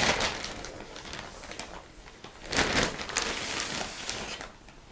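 Plastic carrier bag crinkling and rustling as a folded length of fabric is pulled out of it, loudest at the start and again about two and a half seconds in.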